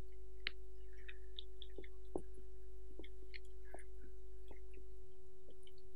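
A steady, quiet electrical hum on one constant pitch, with faint scattered small clicks and ticks of a man eating with his fingers and chewing.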